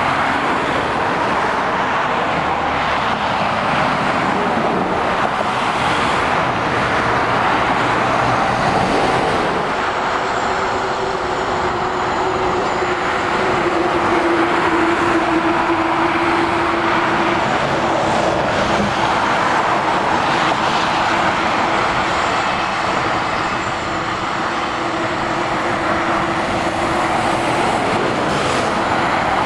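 Dual-carriageway motorway traffic, heavy lorries and cars, passing in a steady rush of tyre and engine noise. A steady whine joins through the middle part and fades out near the end.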